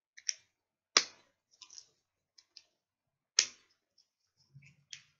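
Scissors snipping through the thin plastic joining a strip of small paint pots: a few sharp separate clicks, the loudest about a second in and again a little after three seconds.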